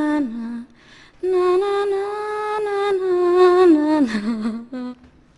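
A high voice singing long wordless held notes with no accompaniment: a phrase ending in a drop in pitch, a short pause, then a longer held note of about two and a half seconds that steps down and wavers, and a brief last note near the end.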